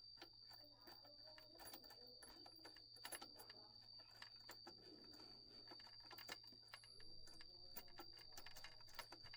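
Faint, irregular small clicks and taps over a steady high-pitched whine.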